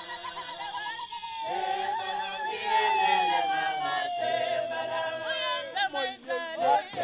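A group of voices singing a Shangaan song a cappella in harmony, with a long held note that slides slowly down through the middle and quicker changing notes near the end.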